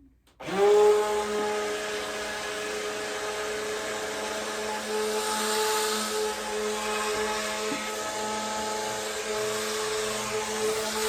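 Electric stick blender starting up about half a second in, its motor whining up in pitch, then running steadily as it mixes lye into oils and goat's milk for soap batter.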